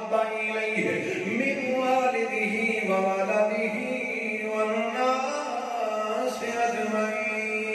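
A man's voice chanting devotional verse in a slow, melodic recitation into a microphone, holding long notes.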